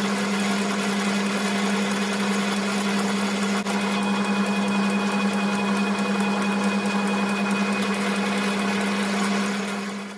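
South Bend lathe running steadily under power during a thread-cutting pass on a tapered pipe thread, with a steady motor hum. Near the end the motor is switched off and the sound quickly dies away.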